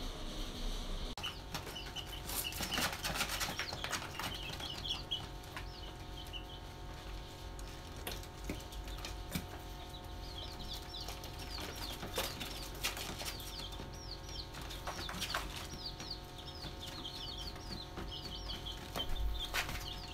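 Young chicks peeping: many short high chirps in quick runs, starting about a second in, with scattered light taps and scratches from the chicks pecking on the paper floor of their cardboard brooder.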